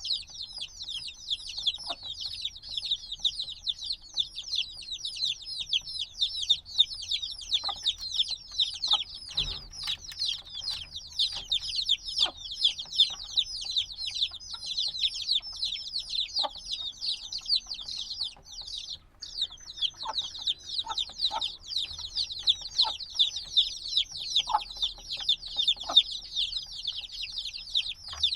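A brood of newly hatched chicks cheeping continuously, many rapid high, downward-sliding peeps overlapping, with a brief lull about two-thirds of the way through. Scattered soft knocks and clicks sound beneath them.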